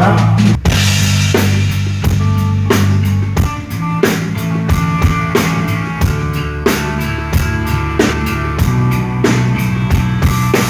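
Live band playing through a PA during a sound check: a drum kit keeps a steady beat of kick and snare over a held bass line, with sustained chords from guitar or keyboard above.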